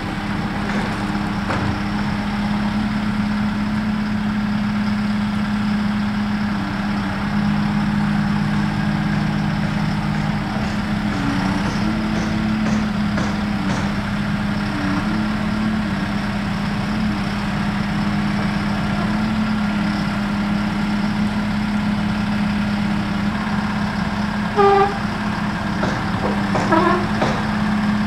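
SkyTrak telehandler's diesel engine running steadily with a constant hum while it lifts a roof truss, still running after repeatedly stalling. Near the end there is a short horn toot, followed by a few brief chirps.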